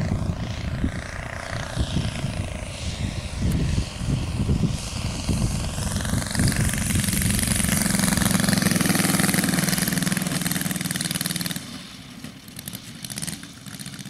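Engine and propeller of a radio-controlled P-51D Mustang scale model running through its landing approach and touchdown, then throttled back to a much quieter idle about eleven and a half seconds in as it rolls out on the grass.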